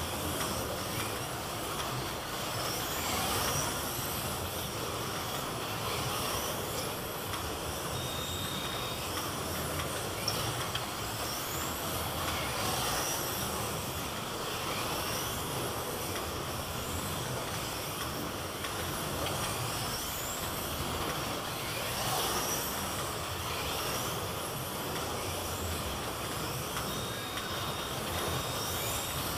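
Slot cars racing on a multi-lane track: small electric motors whining, a short rising whine every couple of seconds as cars accelerate past, over a steady hiss. A short steady high beep sounds about eight seconds in and twice near the end.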